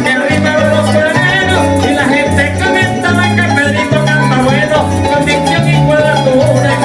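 Live Venezuelan música llanera: a llanera harp, maracas and an electric bass playing together, with a man singing over them.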